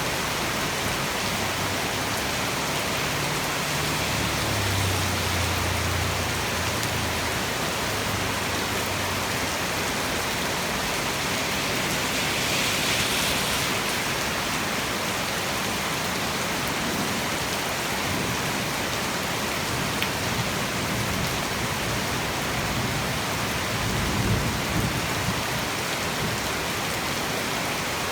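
Heavy tropical rain pouring steadily. A low rumble swells about four seconds in and fades over several seconds, and another short low rumble comes near the end.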